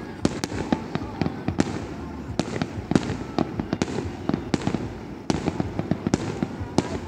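Aerial fireworks exploding in a dense, irregular string of sharp bangs and crackles, a few bangs a second.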